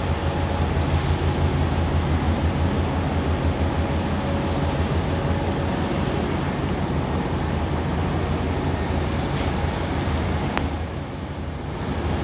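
Steady low drone of marine diesel engines over a wash of wind and water noise, dipping briefly shortly before the end.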